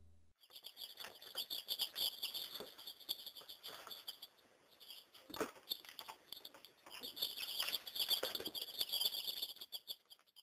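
A brood of baby chicks peeping rapidly and continuously, faint, with a lull about halfway through and a single click in it.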